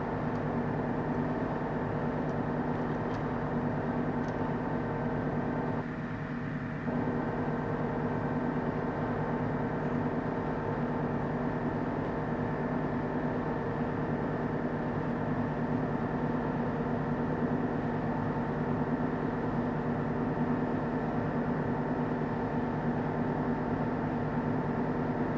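Steady machine hum with many constant tones, dipping briefly about six seconds in.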